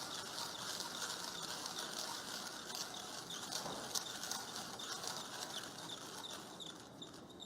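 ARCO hand-cranked burr coffee grinder grinding beans on a coarse filter setting: a steady crackle of beans being crushed by the burrs. In the second half a light regular clicking comes in, about two a second, as the crank turns.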